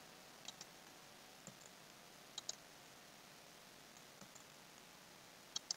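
Faint computer mouse clicks, a few single and paired clicks spread over a near-silent background.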